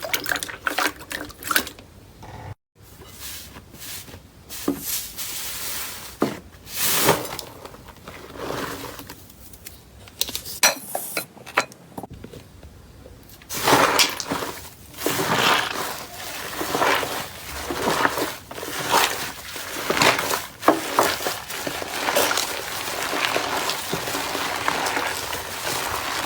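Slime being squished and pressed by hand, with irregular crackling and clicking pops that grow denser from about halfway through.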